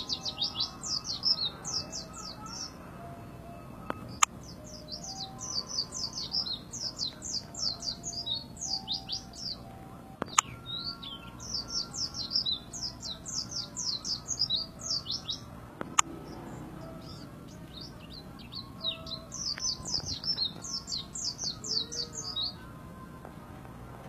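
A white-eye (pleci) in full song: four long bouts of rapid, high twittering notes with short pauses between them. Three sharp clicks fall in the gaps.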